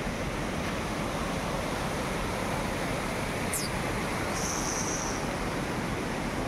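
Steady rushing of a forest stream. A short high falling bird chirp comes about three and a half seconds in, and a brief high whistle follows.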